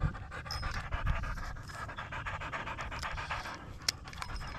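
Fishing reel giving off a rapid run of ticks while a hooked fish fights on the line, with a low wind rumble on the microphone.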